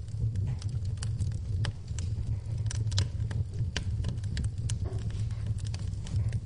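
Wood fire in a fireplace crackling: irregular sharp snaps and pops, several a second, over a steady low rumble of the burning fire.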